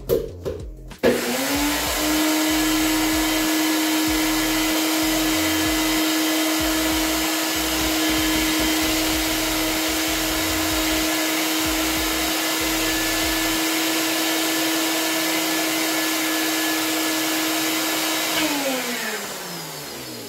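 NutriBullet personal blender blending egg replacer with warm water. After a couple of sharp clicks, the motor spins up about a second in and runs at a steady pitch, then winds down with a falling pitch near the end.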